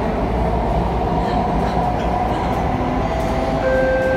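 SMRT C830 metro train running between stations, heard from inside the carriage: a steady rumble from the wheels and running gear with a steady whine above it. A second, lower whine joins near the end.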